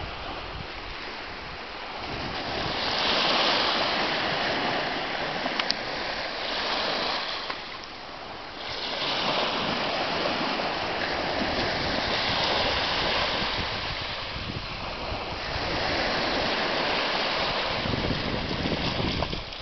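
Water washing and rushing, swelling and easing in surges every few seconds.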